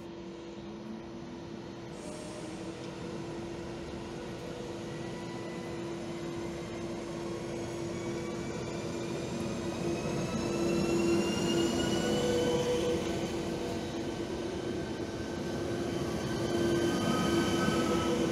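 České dráhy InterPanter (class 660) electric multiple unit rolling slowly in along the platform. Its steady electrical hum and whines rise in pitch, over wheel and rail noise that gets louder as the cars pass close by.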